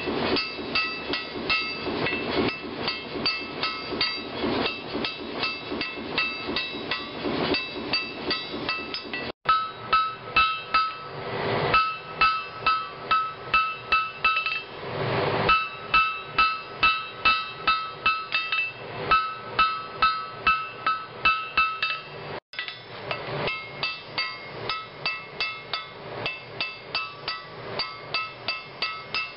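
Blacksmith's hammer striking stainless steel on an anvil: a steady run of blows, about two to three a second, each with a clear metallic ring.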